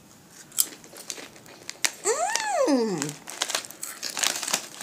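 Crinkling of an Old Dutch potato chip bag as it is handled, in short scattered crackles. About two seconds in, a brief vocal sound rises and falls in pitch over about a second.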